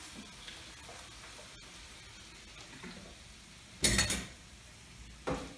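Meat strips sizzling faintly in a frying pan as a little cooking oil is poured over them. About four seconds in, a plastic oil bottle is set down in a stainless-steel sink with a loud knock, followed by a smaller knock near the end.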